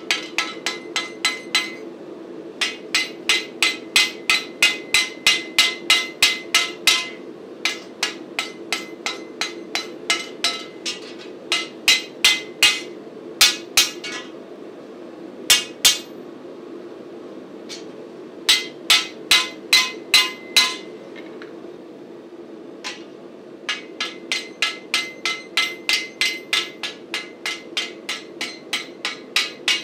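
Hand hammer striking the red-hot end of a flat steel bar on an anvil to upset it for a lap joint. Ringing blows come about three a second, in runs broken by short pauses, over a steady low hum.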